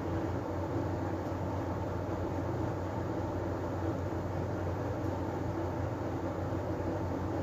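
Steady low background hum and rumbling noise with no distinct events: room tone between narration.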